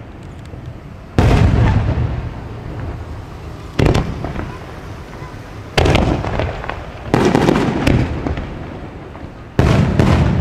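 Aerial fireworks shells bursting, about seven booms at uneven intervals, two of them in quick succession near the end. Each boom is followed by a long rumbling tail that fades before the next.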